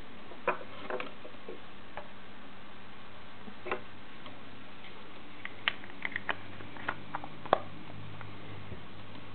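Irregular sharp plastic clicks and taps from a handheld digital stopwatch case being handled, turned over and set down on a wooden table. A few come in the first two seconds and a quick cluster follows from about five and a half to seven and a half seconds in, the loudest near the end of that cluster.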